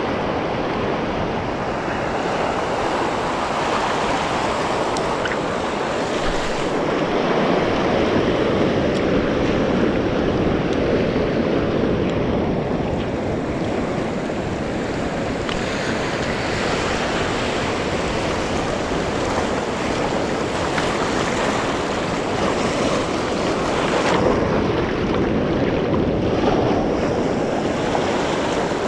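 Small ocean waves washing in over reef rock and sand at the shoreline, a steady rushing that swells and eases, with wind buffeting the microphone.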